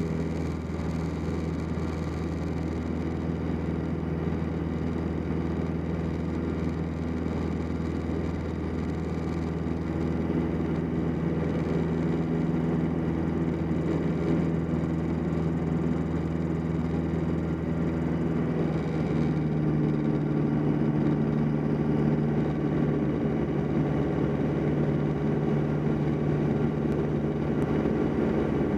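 Single-engine piston light aircraft's engine and propeller, heard from the cockpit as a steady drone in flight. It grows a little louder and changes tone slightly about a third of the way in and again about two-thirds through, as power is adjusted on the approach.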